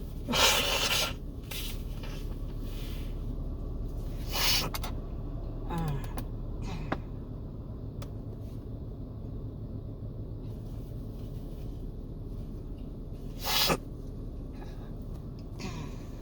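A person sniffling and breathing hard through the nose in the aftermath of a sneezing fit: a few short, noisy sniffs or breaths, the loudest near the start, others about four seconds in and near the end.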